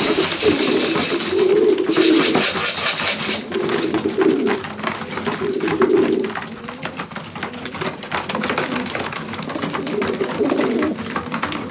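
Pigeons cooing in a loft, several overlapping low warbling coos, with a rapid clatter over the first few seconds; the cooing grows fainter about halfway through.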